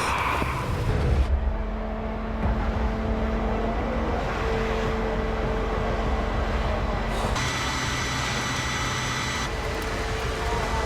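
Engine of a fire engine running steadily, a low drone with faint steady humming tones above it.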